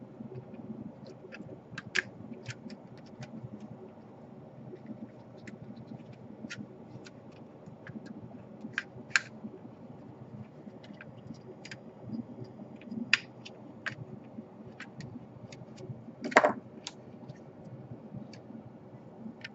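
Small clicks, taps and light scrapes of laptop parts and cables being handled during reassembly, over a steady low hum, with one louder knock about sixteen seconds in.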